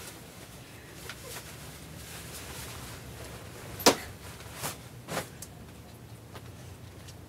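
A few short sharp knocks, the loudest about four seconds in and two softer ones soon after, over a low steady room hum.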